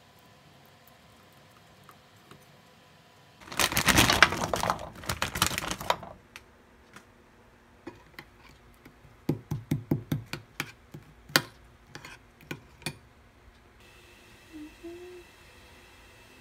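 Kitchen utensil clatter: a burst of rapid clicking a few seconds in, then a run of sharp separate taps of a metal spoon knocking against a bowl as seasoning sauce is mixed.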